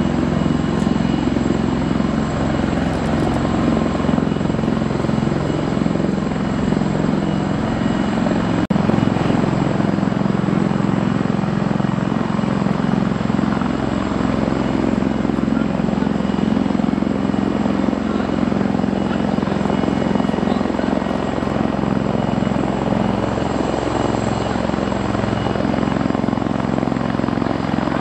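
AgustaWestland AW159 Wildcat helicopter running on the ground with its rotors turning: a steady, high turbine whine from its twin turboshaft engines over the low drone of the rotor.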